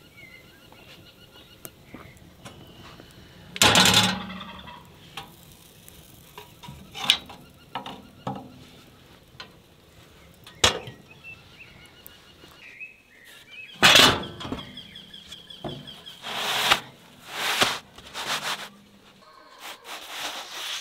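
Clanks, knocks and scrapes from working a wood-fired bread oven: its metal doors and a wooden peel sliding flatbread dough onto the oven floor. There are two loud clanks, about four seconds and fourteen seconds in, and a run of knocks near the end.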